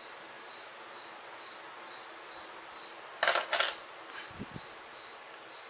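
Two brief rustles about three seconds in, from hands handling the crochet piece and thread, over a steady faint high-pitched whine that pulses softly about twice a second.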